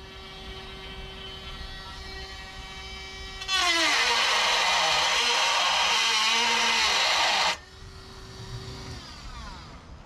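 Dremel rotary tool running free with a steady high whine, then cutting into thin car body steel for about four seconds. The motor's pitch sags under the load, then it runs free again and winds down near the end.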